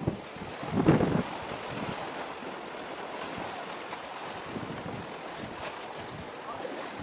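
Wind and sea noise: a steady hiss of wind and water, with a gust buffeting the microphone about a second in.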